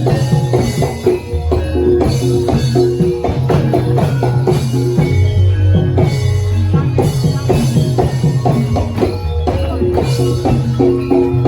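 Live jaranan music from a Javanese gamelan-style ensemble: fast, dense drumming over repeated ringing tones from tuned metal percussion, playing continuously.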